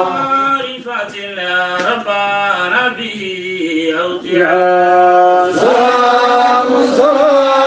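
A male voice chanting an Arabic devotional qasida in the style of a Sufi dhikr. It draws out long held notes joined by sliding melodic turns.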